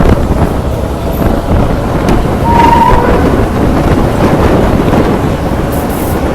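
Passenger train running along the rails, with loud wind rushing over the microphone. A short high tone sounds briefly about two and a half seconds in.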